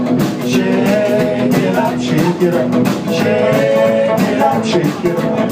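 Live rock and roll band playing: upright bass, drum kit and electric guitar, with a man singing.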